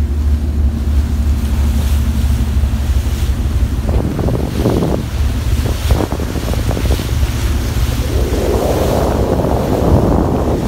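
Wind buffeting the microphone over the rush of a ship's hull wave through the sea, with a steady low hum from the ship under way. About two-thirds of the way through, the rushing water grows louder and fuller.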